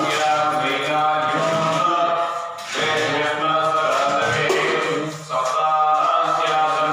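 Several male voices chanting devotional mantras together in a steady, sung tone, with two brief pauses for breath.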